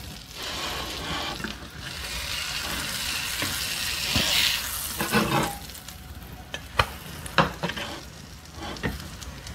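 Melted butter sizzling in a stainless steel skillet as a sandwich fries, swelling for a moment about four seconds in while a spatula presses and moves the sandwich. In the second half the sizzle dies down, and a few sharp taps of the spatula on the pan are heard.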